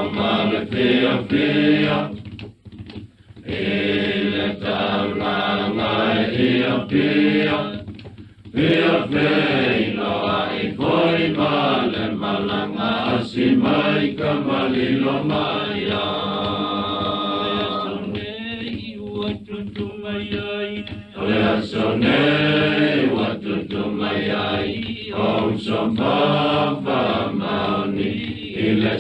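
A group of voices singing a traditional Samoan song, with short breaks between phrases about two and a half and eight seconds in.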